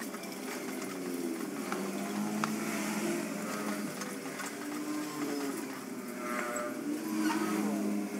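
A low humming drone that wavers in pitch, with a few faint clicks as copper winding wire is pulled out of an electric motor's stator.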